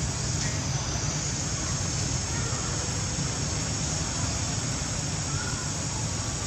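Steady outdoor forest ambience: a constant high-pitched insect drone over a low, uneven rumble.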